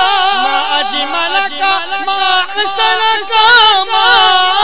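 A man singing a naat, Islamic devotional song, into a hand-held microphone. He draws out long ornamented notes with a wavering vibrato and no clear words.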